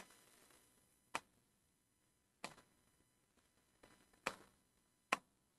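Four faint clicks of a stylus tapping the glass of an interactive display board while writing, spaced a second or more apart, over near silence.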